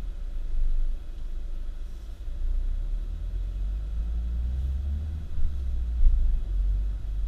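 Low rumble of a car on the move, swelling and dipping in level, with no clear engine note above it.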